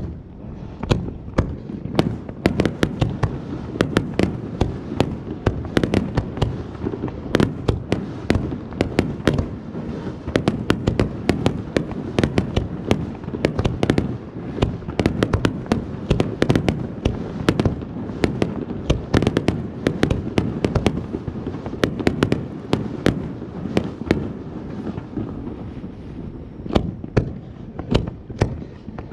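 Fireworks crackling: a rapid, uneven stream of sharp pops and crackles over a low rumble.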